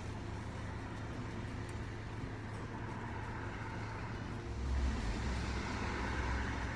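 A car engine running with a low, steady rumble that grows louder about four and a half seconds in.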